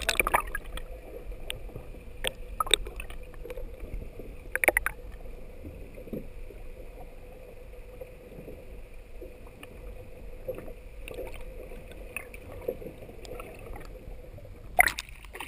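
Muffled underwater sound picked up by a camera held beneath the sea surface: a steady low rumble with a faint steady hum. Sharp knocks and splashes come at the start, twice in the first five seconds, and in a louder cluster near the end.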